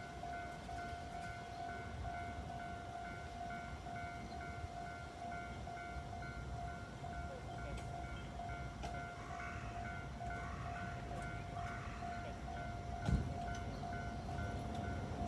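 Japanese level-crossing warning bell ringing on and on in an even pulse, over the low rumble of a train. There is a single low thump near the end.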